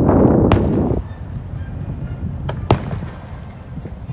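Aerial fireworks shells bursting at a distance: a few sharp bangs, the loudest near three seconds in. A loud steady noise runs underneath for about the first second, then cuts off suddenly.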